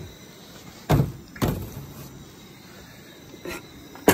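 Knocks and clatter of camp cookware being handled on a stainless-steel slide-out kitchen counter: two heavy knocks about a second in, half a second apart, then a sharp click near the end.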